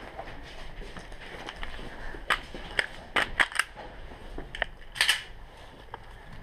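Airsoft pistol shots: a string of sharp snaps, with three in quick succession about three seconds in and a louder, longer crack about five seconds in.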